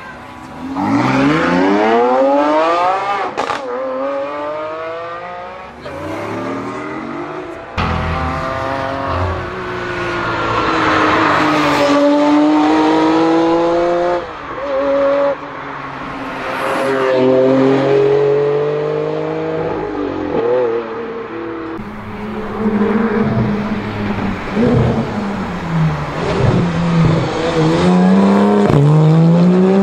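Supercar engines accelerating hard in a run of short clips, among them a Ferrari F50's V12 and a Porsche 911 GT3's flat-six. The pitch climbs with the revs and drops back at each gear change, over and over.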